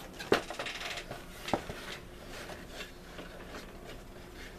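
Cardboard model kit box being picked up and handled: a sharp knock about a third of a second in with a brief scraping rustle, a second knock at about a second and a half, then faint light ticks.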